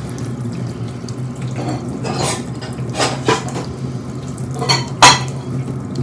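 Kitchen tap running into the sink while glasses are rinsed by hand, with a handful of sharp glass clinks. The loudest clink comes about five seconds in.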